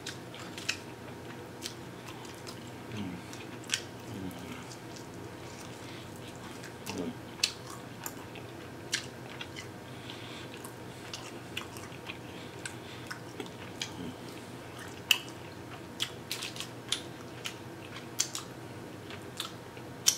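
A person chewing and biting barbecue pork ribs held in the hands, close to the microphone. The sound is a run of short, irregular mouth clicks and smacks, with one sharper than the rest about fifteen seconds in.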